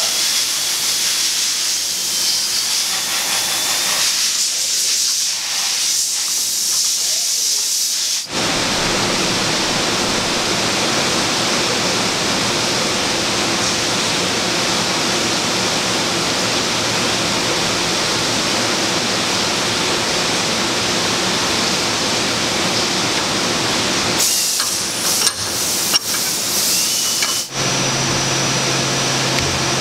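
Steady, loud hissing noise, changing abruptly a few times, with a couple of sharp clicks a few seconds before the end.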